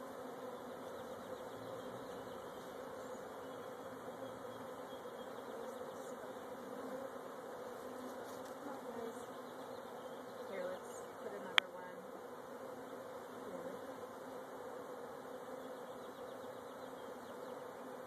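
A large honeybee swarm buzzing around an open hive box, a steady hum at one pitch. One sharp click about two-thirds of the way through.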